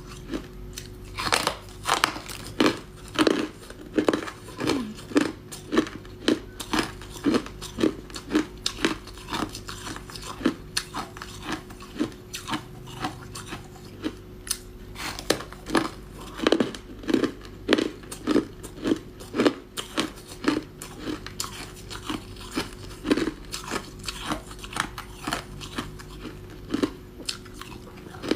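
Close-up crunching of ice being bitten and chewed, short sharp crunches about one or two a second.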